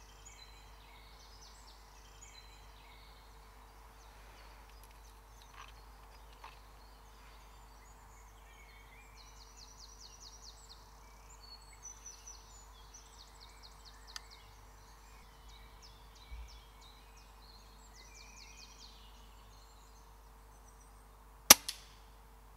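Songbirds calling in woodland, with repeated short trills. Near the end, a single sharp crack from a Daystate Huntsman Revere pre-charged pneumatic air rifle firing at a grey squirrel, followed about half a second later by a fainter knock.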